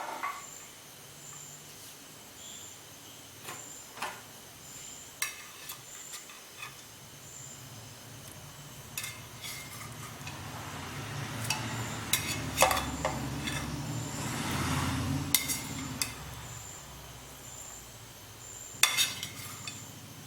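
Spoon and fried chicken pieces knocking and scraping in a steel pressure cooker as the chicken is added to the masala gravy: scattered clinks, busiest in the middle, over a low rumble that builds and fades.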